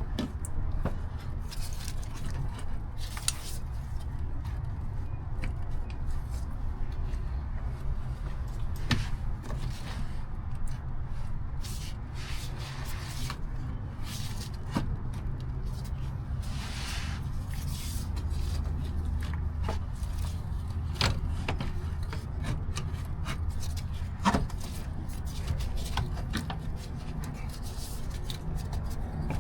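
Scattered metal clicks, knocks and scrapes as a replacement alternator is worked up into a car's engine bay, over a steady low hum.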